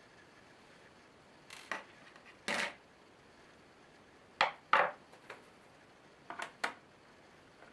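Small hard clicks and knocks of a screwdriver, screws and plastic parts being handled on a tabletop while taking apart a laptop's underside: six or so short clinks, some in quick pairs.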